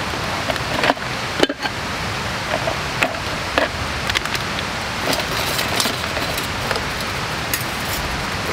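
Steady rushing noise, with scattered light clicks and rustles as items are handled in a plastic crate.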